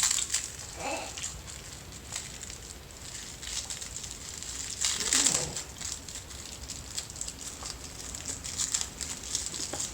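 Rustling and crinkling of plastic plant wrapping being handled and opened, with scattered light clicks and a short falling sound about five seconds in.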